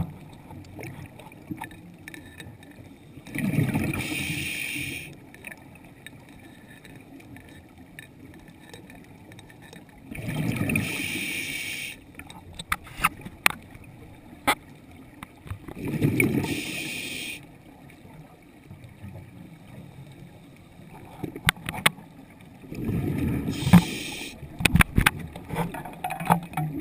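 A diver breathing underwater through a scuba regulator: four slow breaths, each a hiss with a low bubbling rumble, about every six to seven seconds. Scattered sharp clicks come between the breaths.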